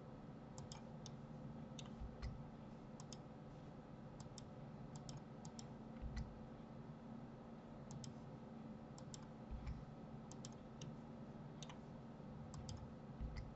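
Computer mouse button clicks and keyboard key presses, faint and irregular, many in quick pairs, with a few soft low thumps over a steady low hum.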